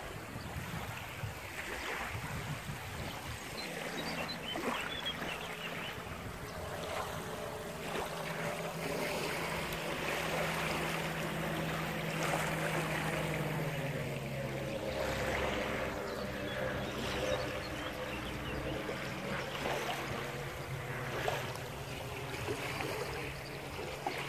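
Small lake waves lapping and washing onto a shingle shore. From about four seconds in there is a steady engine drone, which drops slightly in pitch about halfway through.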